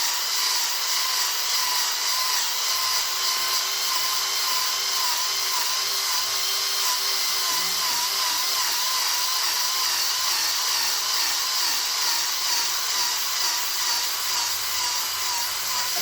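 Electric drill running steadily with a wire wheel scrubbing rust off an 8-inch jointer's cast-iron bed: a motor whine that wavers slightly in pitch over the hiss of the wire bristles.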